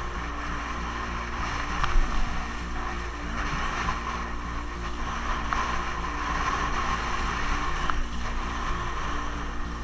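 Wind blasting across an action camera's microphone and water rushing past a vintage Mistral Screamer windsurf board planing through chop in strong gusts, with a sharp knock about two seconds in.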